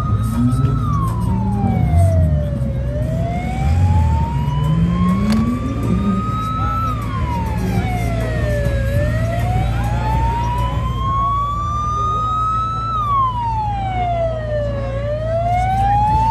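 Siren wailing in a slow cycle: the pitch climbs for about four seconds, then falls quickly, repeating three times. Underneath is a steady low drone.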